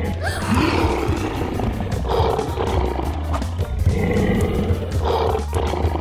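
Background music with a steady beat, with dinosaur roars over it several times.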